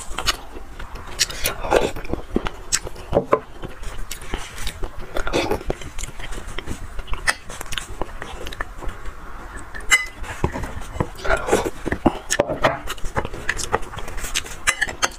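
Close-miked eating sounds: irregular clicks and scrapes of a metal spoon and knife working marrow out of spiced beef bones on a plate, mixed with mouth and chewing sounds.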